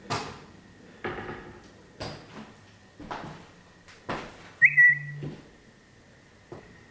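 Slow footsteps, about one a second, with a sharp high squeak about four and a half seconds in that drops slightly in pitch and fades into a faint steady whine.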